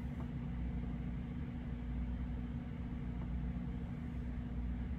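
Steady low hum, unchanging and with no other sound: the background noise of the narration recording.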